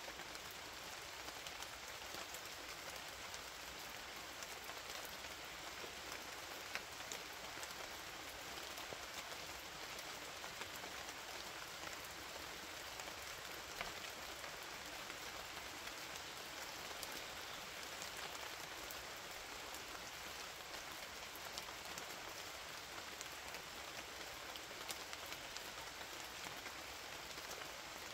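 Steady rain falling, an even hiss with scattered sharp ticks of single drops striking a surface.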